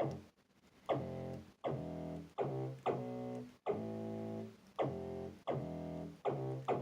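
Teenage Engineering Pocket Operator synthesizer playing a short melody of separate pitched notes, one after another, each starting sharply and fading.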